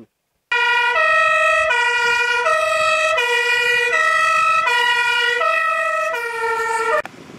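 Fire engine's two-tone siren (German Martinshorn) sounding its alternating high-low 'tatü-tata', each tone held about two-thirds of a second. It cuts off abruptly near the end.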